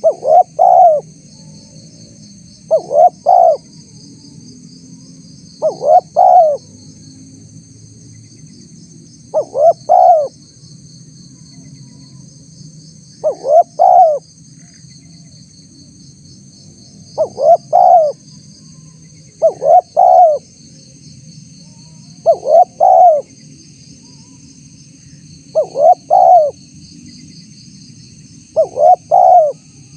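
Spotted dove (tekukur) cooing in ten short phrases of two or three quick notes each, about every three seconds. This is a lure call used to draw wild spotted doves. A steady high insect buzz runs underneath.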